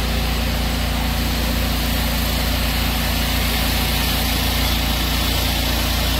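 BMW 340i's turbocharged 3.0-litre straight-six, fitted with a Pure800 upgrade turbo, idling steadily.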